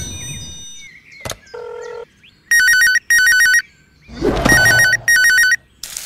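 Telephone ringing: a warbling electronic trill in two double rings, the second pair about two seconds after the first. A short beep comes before the rings, and a brief burst of noise comes just before the second pair.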